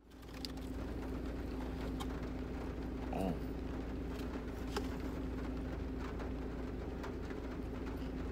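Steady low hum of a pickup truck running at idle, heard inside the closed cab. A few faint light ticks are scattered through it, and there is a brief muffled sound about three seconds in.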